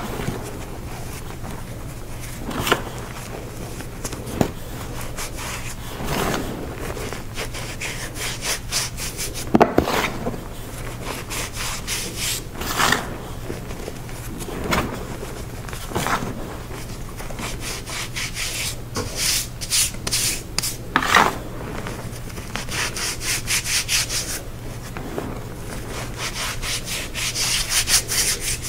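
Dusty dyed gym chalk blocks being crushed and crumbled: irregular crunches and gritty rubbing, growing into dense crackling near the end.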